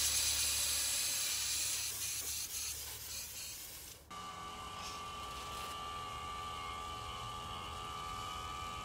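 Gas hissing loudly at a heat pump's refrigerant service valve, fading over about four seconds. It then gives way to an HVAC vacuum pump running steadily with a high whine, pulling a deep vacuum on the line set.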